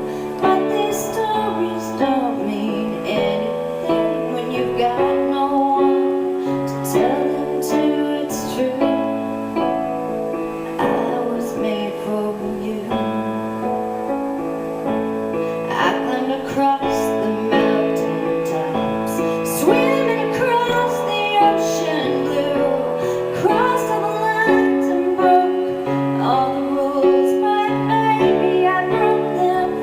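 Background music: a song with a woman singing over instrumental accompaniment.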